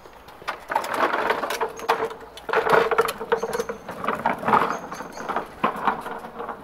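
Walk-behind petrol lawnmower rolled over a tiled pavement, its wheels and frame rattling and clattering in uneven bursts with a squeak.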